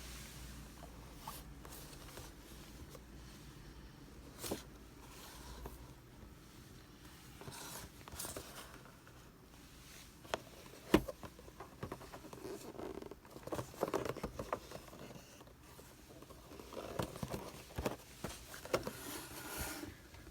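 Faint rustling and handling noises with scattered clicks and knocks, busier in the second half; the sharpest click comes about eleven seconds in.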